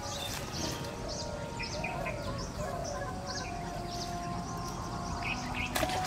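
Small birds chirping over and over, with a few lower warbling calls. Near the end comes a short splash as a hooked fish is pulled up through the pond surface.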